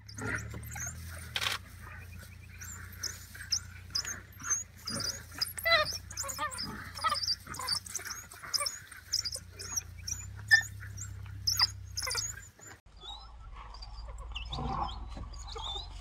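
African wild dog pack giving rapid, repeated high-pitched chirps while mobbing and biting a red hartebeest, with scattered sharp knocks. The chirping thins out after about twelve seconds.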